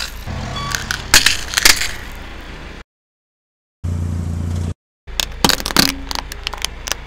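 Crunching and sharp cracking as a car tyre crushes a set of dentures, then a second of dead silence. A short steady low engine hum follows, then another run of cracks and crackles as the tyre crushes a pumpkin.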